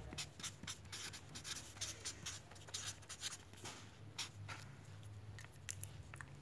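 Felt-tip marker writing on ruled notebook paper: short, irregular scratchy strokes as a word is written out, with two sharper ticks near the end, over a faint low hum.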